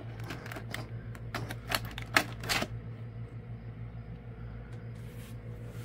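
Plastic toy packaging clicking and crackling as an action figure is pulled free of it: a dense run of sharp clicks for about two and a half seconds, then a few scattered ones, over a low steady hum.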